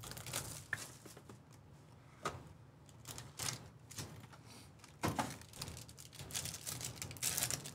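Plastic shrink-wrap being torn off a trading-card hobby box, then the box being opened and the wrapped pack inside pulled out and handled: a string of irregular crinkles, rips and small taps.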